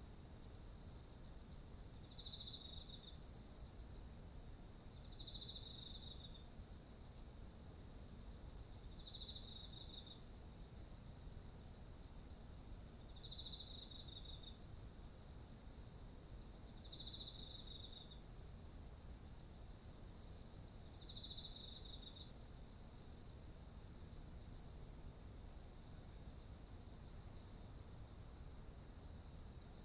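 Autumn insects calling together in a chorus: one holds a very high, unbroken trill, another sings rapid pulsed trills in bursts of one to three seconds with short breaks between, and a third gives a short, lower call about every three to four seconds.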